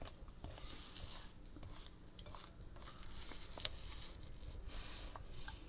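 Hands working soft cookie dough in a glass bowl: faint, irregular squishing and patting, with one sharp click about three and a half seconds in.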